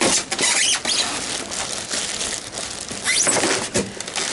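Styrofoam packing squeaking and scraping against cardboard as a heavy boxed fridge is wrestled out of it, with short squeals and knocks.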